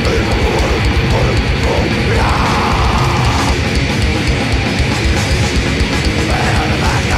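A blackened death/thrash metal band playing loud: distorted electric guitars over fast, dense drumming, without a break.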